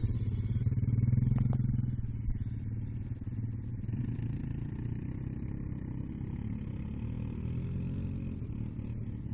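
ATV (four-wheeler) engines running steadily, a low engine note that swells about a second in and then settles.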